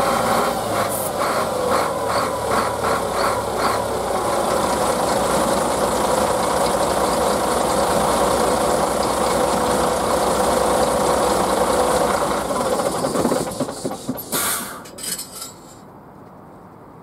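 Engine of a Solaris Urbino 15 III city bus running, heard from underneath the bus: a falling whine and a quick rhythmic pulsing in the first few seconds, then a steady run. About two-thirds in the engine sound breaks up and dies away with a brief burst of noise, leaving a much quieter background: the engine shutting down.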